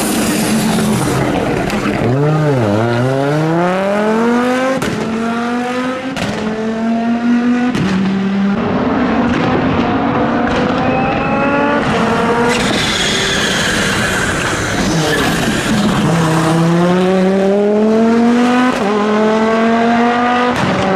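Audi Quattro S1's turbocharged five-cylinder engine accelerating hard through the gears. The revs climb and drop at each upshift, and after a low point about two and a half seconds in it pulls up from low revs again.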